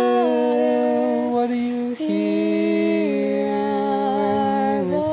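Two unaccompanied voices singing a slow chant as a round in two parts, holding long notes that step to new pitches a few times, with a short breath-break just before the second note.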